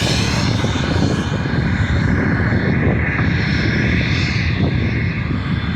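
A jet aircraft's engine running out over the airfield, heavily buffeted by wind on the microphone; the low wind rumble is the loudest part.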